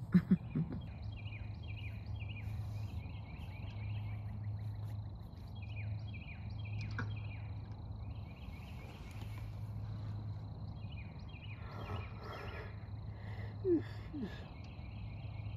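A dense chorus of short, high chirping calls from animals, several a second without a break, over a steady low hum. A few short knocks sound just after the start, and a brief low gliding sound comes near the end.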